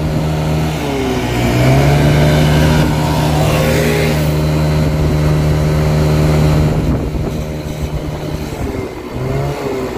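A 50cc Chinese scooter engine revving high and holding there under throttle. About seven seconds in it drops back toward idle, with a brief blip near the end. Its CVT variator rollers have been changed, so it revs very high and makes weird shift points.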